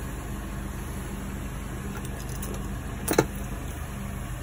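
Scania bus diesel engine idling steadily, heard from inside the cab. A single sharp click sounds about three seconds in.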